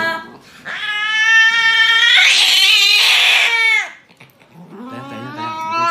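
Domestic cat yowling in distress at being restrained for an injection: one long drawn-out yowl of about three seconds that turns raspy midway, then a second yowl starting near the end.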